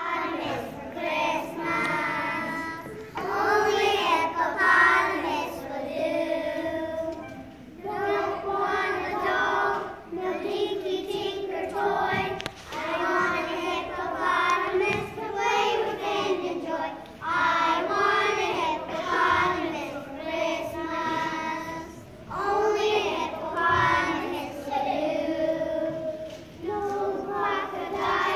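A small group of young children singing together in unison, in phrases a few seconds long with short breaks between them.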